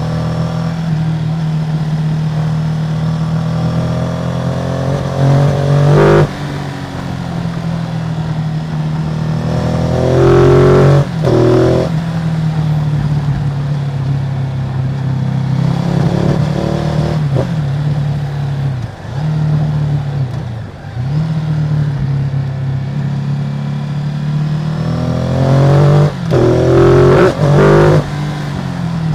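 Ducati Multistrada 950's Testastretta L-twin engine with its stock exhaust running steadily, rising sharply under throttle four times and dropping back briefly twice in between.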